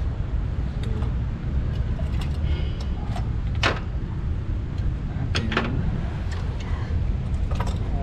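Spark plugs and tools clinking as they are set down on the car's metal body panel: a few sharp clinks, the loudest about halfway through, over a steady low background rumble.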